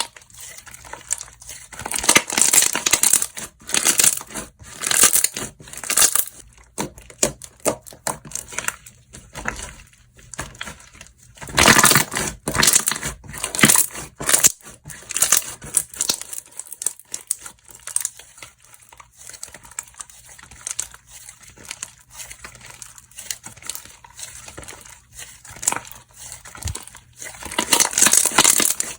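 Slime being squished, stretched and kneaded by hand, giving crinkly crackling and sticky clicking in uneven bouts with quieter stretches between.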